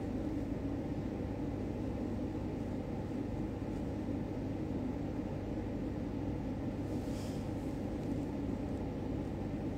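Steady low background hum and rumble of room noise, with a brief faint hiss about seven seconds in.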